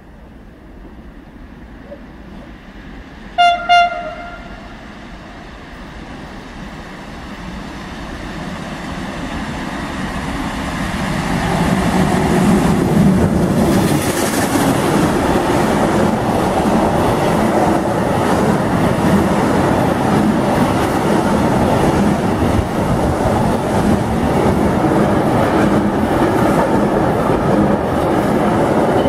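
A freight train with tank-container wagons gives two short horn blasts about three seconds in. It then approaches with a rumble that grows louder and passes close by at speed, its wheels clicking over the rail joints steadily.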